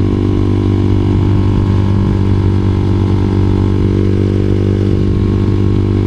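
Honda CBR250R's single-cylinder engine running at a steady pitch while the motorcycle cruises along the road.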